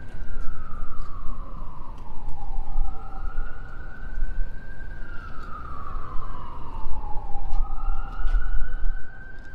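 Emergency vehicle siren in a slow wail, its pitch falling and rising over several seconds per sweep, over a steady low city rumble.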